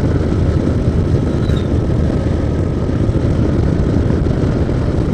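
Steady rush of wind on the microphone of a moving motorcycle, with the bike's road noise underneath.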